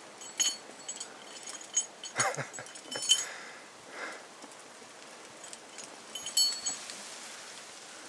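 Climbing hardware (carabiners and quickdraws) on a climber's harness clinking in short, light metallic jingles, four or five times, as he moves up the rock, with a few softer scuffs in between.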